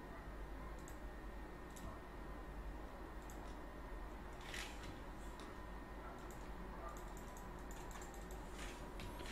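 Scattered computer mouse clicks, roughly one a second, as the points of a polygonal lasso selection are set. A steady low hum and faint hiss from the recording sits under them.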